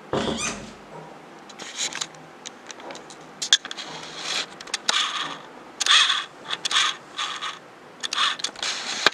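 Handling noise: irregular scraping and rubbing strokes, about a dozen of them, with a few sharp clicks in between.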